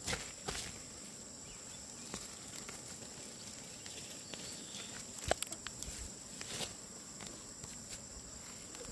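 A steady, high-pitched insect chorus, with scattered light steps and knocks, the loudest about five seconds in.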